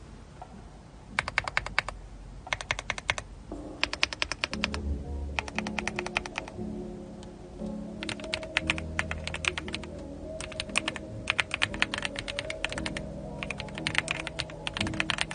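Fast typing on an AULA F75 mechanical keyboard: short bursts of rapid key clicks at first, then long runs of clatter. Background music with sustained low notes comes in about three seconds in.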